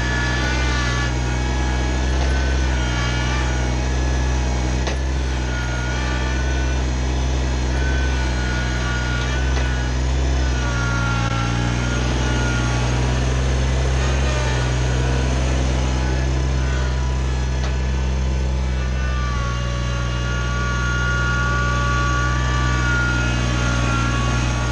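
Kubota BX25 sub-compact tractor's three-cylinder diesel engine running steadily, a constant low drone with higher whining tones that come and go over it.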